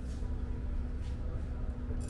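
Wind buffeting the microphone as a dense, gusting low rumble, with a faint steady hum underneath.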